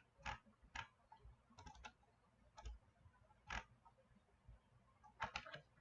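Faint, irregular clicks of a computer mouse and keyboard, single clicks and a few quick double clicks, as text is copied and pasted.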